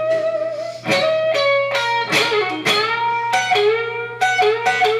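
Fender Stratocaster electric guitar playing a melodic phrase of plucked single notes and chord fragments, the notes ringing into one another, with vibrato and string bends that rise and are released.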